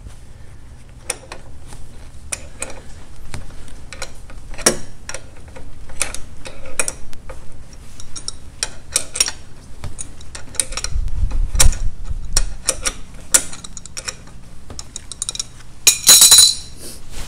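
Ratchet wrench clicking in short, irregular runs as it loosens the bolts holding a lawn tractor engine's Easy Change oil filter holder. A brief, louder burst of noise comes near the end.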